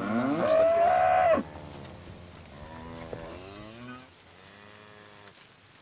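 Cows mooing: one loud moo that rises in pitch and then holds, breaking off after about a second and a half, followed by fainter moos from other cows in the herd.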